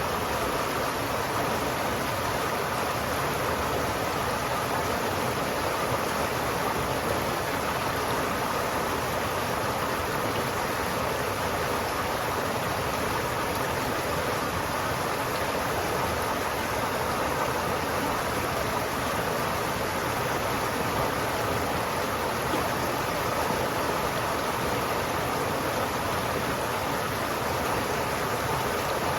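River water flowing steadily, a continuous even rush with no breaks.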